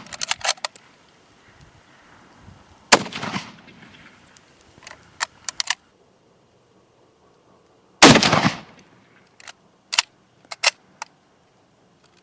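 Lee-Enfield No. 4 Mk1 .303 bolt-action rifle fired twice, about five seconds apart, the second shot the loudest, each with a short echoing tail. Each shot is followed after a second or two by a quick run of sharp metallic clicks as the bolt is worked to eject and chamber the next round. Another such run of bolt clicks comes right at the start.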